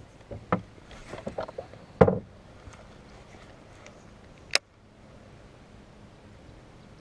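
Handling of a baitcasting rod and reel in an aluminium boat: a quick run of light knocks and rattles, a louder thump about two seconds in, and one sharp click about four and a half seconds in.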